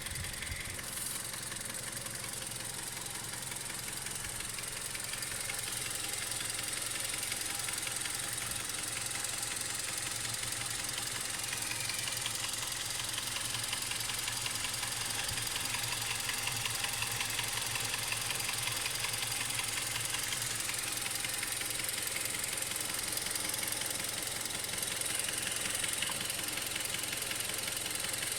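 Mazda 6 engine idling when fully warmed up, with a steady knock running through the idle: the fault the owner is showing.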